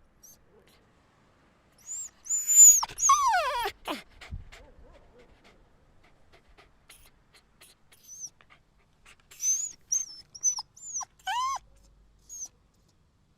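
A whiny dog giving high, squeaky barks and whines. A long falling whine comes about three seconds in, and a run of short squeaks and a brief rising whine follow in the second half.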